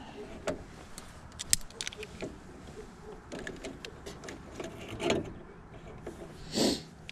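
Hand tools and electrical wire being handled, with scattered sharp clicks and light metallic ticks and a couple of brief rustles near the end, as a wire is about to be stripped.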